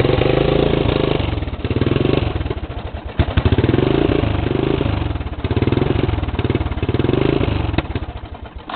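Honda ATC200E three-wheeler's single-cylinder four-stroke engine running on choke just after a hand-pulled cold start, its speed rising and falling several times, then dropping away near the end.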